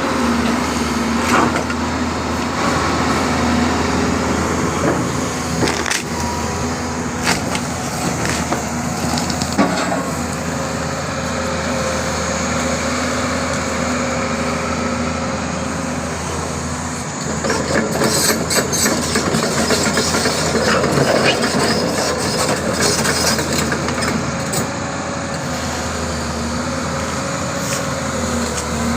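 Doosan 225 hydraulic excavator's engine running steadily while mango tree wood cracks and splinters under it, with scattered sharp cracks and a denser flurry of them about two-thirds of the way in.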